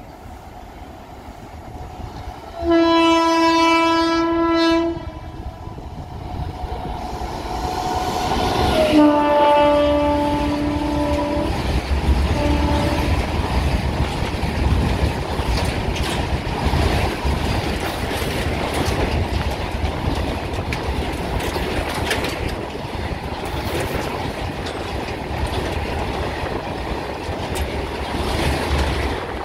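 Freight train locomotive horn sounding a long blast about three seconds in, then a second blast about nine seconds in followed by a short toot. Then the train of covered goods wagons runs past with a steady rumble and the clickety-clack of wheels over rail joints.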